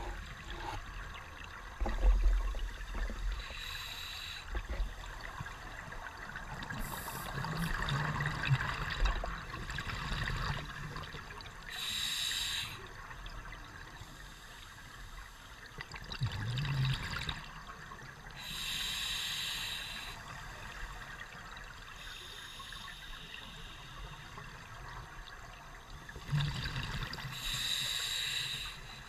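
Scuba diver breathing underwater through a regulator, heard through a camera's underwater housing: a hiss of inhalation every several seconds, with low bubbling rumbles from exhaled bubbles between the breaths.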